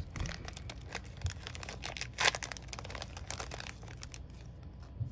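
A foil Pokémon booster-pack wrapper crinkling and tearing as it is pulled open by hand, a dense run of sharp crackles with the loudest about two seconds in, tailing off near the end.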